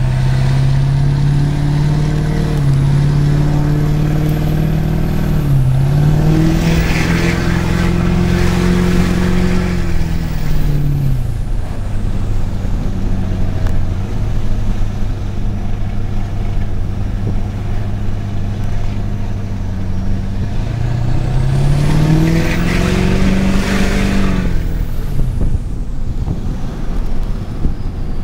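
LB7 Duramax 6.6 L V8 turbodiesel pulling through two accelerations, heard with the windows down. The engine note rises and falls each time, and a high turbo whistle climbs and fades with it.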